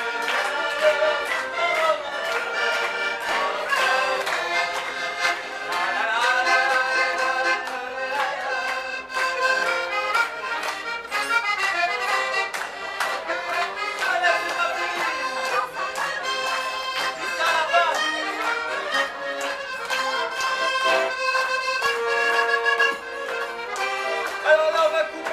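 Piermaria button accordion played live: a lively tune, melody notes over a steady pulse of chords.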